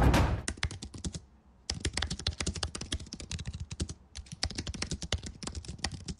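Typing on a computer keyboard: rapid runs of key clicks, broken by two short pauses, one about a second and a half in and another about four seconds in.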